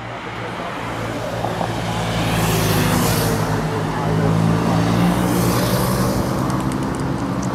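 Police escort vehicles, motorcycles and a car, driving past with engines running. A rush of tyre and wind noise swells twice as they go by.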